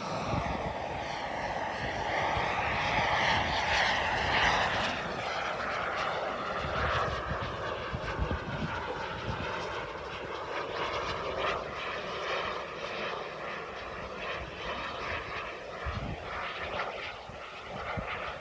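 Behotec 220 model jet turbine in a Tomahawk Futura RC jet flying past: a hissing jet whine, loudest about three to five seconds in, then fading as the jet moves off into the distance.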